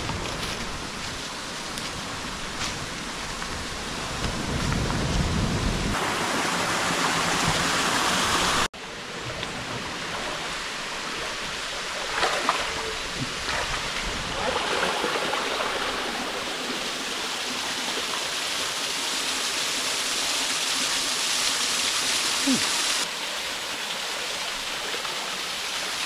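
Steady rush of running water, breaking off and changing level abruptly a few times.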